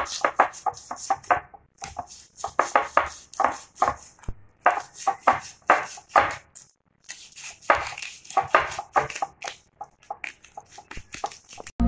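A sharp knife scraping and shaving the scales off a whole katla (catla) fish: quick repeated strokes in runs, with short pauses between runs.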